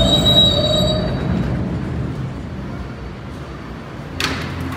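R160 subway train braking to a stop: high wheel and brake squeal tones fade out in the first second or so, leaving a low rumble that slowly dies away, then a short sharp hiss of air near the end.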